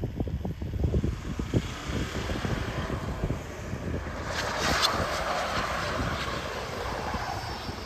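Volvo XC70 D4 AWD driving through deep snow. The engine rumbles with low thumps, then a rushing hiss builds and is loudest about five seconds in.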